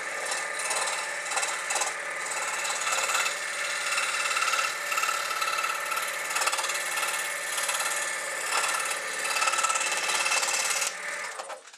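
Scroll saw running and cutting a thin wooden puzzle blank: the blade's rapid strokes make a steady rasping over the motor's hum. The saw stops near the end.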